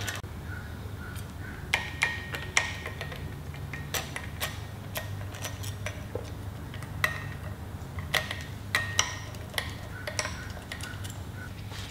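Light metallic clicks and clinks, irregularly spaced, from a hand tool working the bolts out of a marine sea pump's rear housing and the bolts being handled, over a steady low hum.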